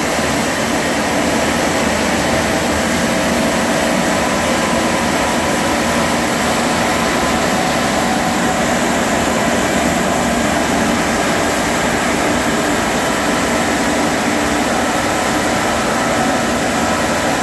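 Scarab Magnum truck-mounted street sweeper at work: engine and suction fan running steadily with its spinning brushes and water jets, a loud, even rushing noise with a faint steady hum in it.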